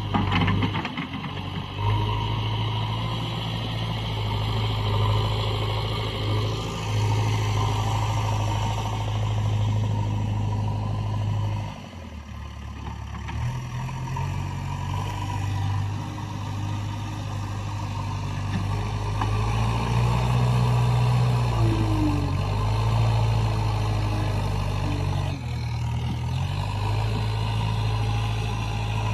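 Diesel engine of a JCB backhoe loader running steadily as the machine works. The engine note dips briefly about twelve seconds in, then picks up again and shifts once more near the end.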